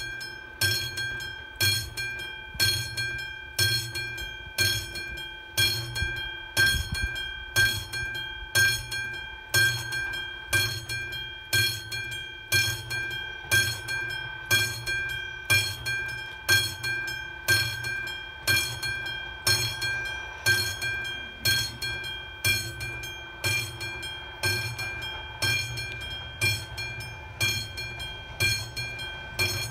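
Railway level-crossing warning bell ringing in a steady, even rhythm of about three strikes every two seconds, each strike ringing on into the next: the signal that a train is approaching the crossing.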